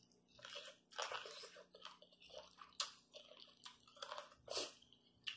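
Close-up chewing and biting on cooked chicken feet, with irregular crunches. There is a sharper crunch about three seconds in and another near the end.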